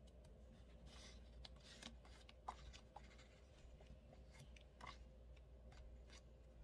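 Faint paper rustling and soft clicks as the pages of a sticker book are turned by hand, with a couple of slightly sharper clicks midway.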